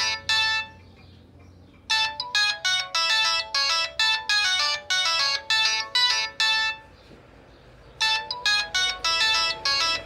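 Samsung SCH-A815 cell phone playing its default ringtone: quick runs of bright, plucked-sounding notes. The tune breaks off for about a second twice, once just after the start and once about seven seconds in, then starts over.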